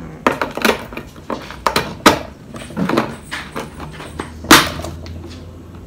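Sharp plastic clicks and knocks as ice is pushed into the narrow neck of a one-gallon plastic bottle of milk tea, a cube that barely fits. One louder knock comes about four and a half seconds in.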